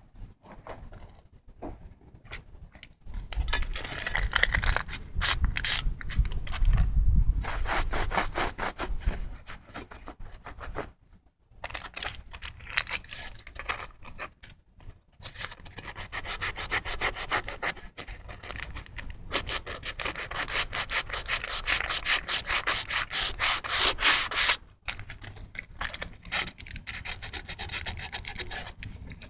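Rapid rasping, rubbing strokes, many a second, in long runs broken by a few short pauses, dying down a few seconds before the end.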